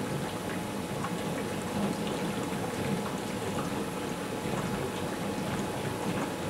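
Steady bubbling and fizzing of hydrogen-oxygen (HHO) gas from a 144-plate electrolyser cell, the gas rising through water in many small bubbles. A faint steady hum runs underneath.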